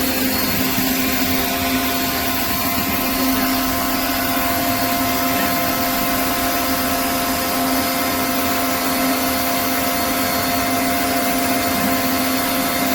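Pressure washer running steadily, its high-pressure water jet hissing against concrete as the grooves are cleaned out, over a constant hum from the machine.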